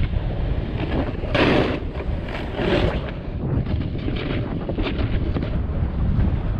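Wind buffeting an action camera's microphone as a snowboarder rides fast downhill through snow, a steady low rumble, with the board hissing through the snow in louder bursts on turns, about a second and a half in and again near three seconds.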